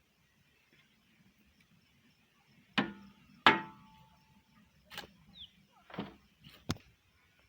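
About five sharp knocks of a digging tool striking hard ground, irregularly spaced and beginning a few seconds in. The second knock is the loudest and has a short metallic ring.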